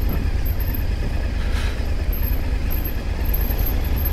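Motorcycle engine running steadily as the bike rolls slowly, heard from the rider's seat, with a constant low rumble underneath.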